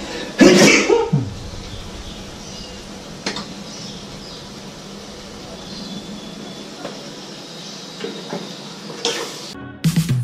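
Squid frying in a wok, a steady sizzle with a few sharp knocks of a utensil against the pan. A brief burst of voice comes about half a second in, and music starts just before the end.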